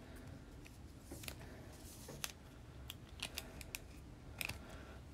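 A trading card in a soft plastic sleeve being slid into a rigid plastic top loader and handled: faint, irregular clicks and light scrapes of plastic against plastic.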